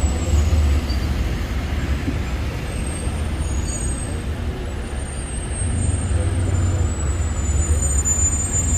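Steady low rumble of road noise heard from inside a moving car in city traffic.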